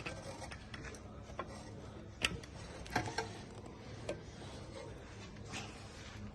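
A few light metallic clicks and knocks from brake pads and the pad retaining pin being handled and fitted into a car's rear brake caliper, the loudest a little over two seconds in and around three seconds in.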